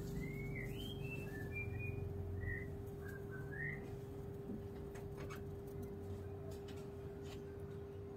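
A small bird chirping: about ten short, high notes that glide up or down, ending a little before halfway, over a steady low hum.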